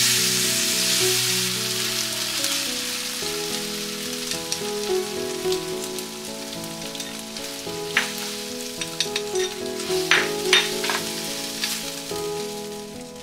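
Food sizzling in a frying pan, the sizzle gradually fading, with a few sharp clicks of a utensil against the pan near the end. Background music plays underneath.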